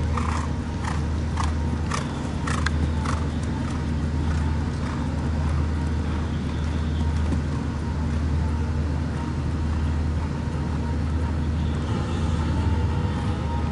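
A horse's hoofbeats at a canter on an arena surface, sharp strikes about two a second in the first few seconds, over a steady low rumble of background noise.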